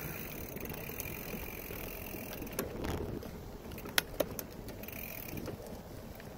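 Bicycle rolling fast over a dirt trail: steady tyre rumble and rattle from the bike over the rough ground, with two sharp knocks about four seconds in.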